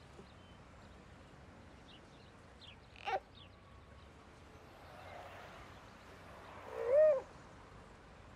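Short cooing vocal sounds: a quick falling squeal about three seconds in and a louder rising-and-falling coo near the end, with faint bird chirps behind.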